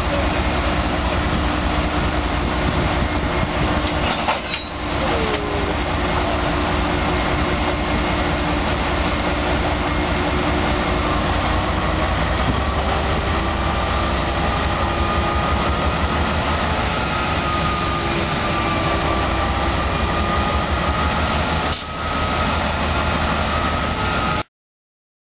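Amtrak GE Genesis P42 diesel-electric locomotive idling close by: a loud, steady engine noise.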